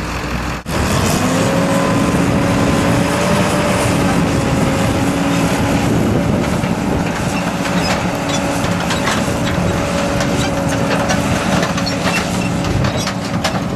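Combine harvester running steadily, a loud machine drone with a few held humming tones. It cuts out for a moment less than a second in, then carries on unchanged.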